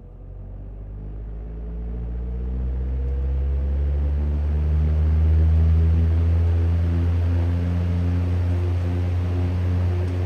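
1950 GE Vortalex 12-inch oscillating table fan starting up on high speed: its motor hum and the rush of the blades grow louder and rise slightly in pitch over about five seconds as it comes up to speed, then run steadily.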